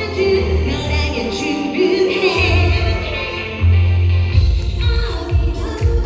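Live pop song: a woman singing over a band through a concert sound system, with strong bass; drum hits come in a little over four seconds in.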